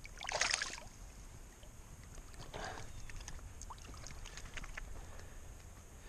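Water splashing in shallow lake water as a lake trout is released by hand: a short splash about half a second in, then a softer splash near three seconds and a few faint drips.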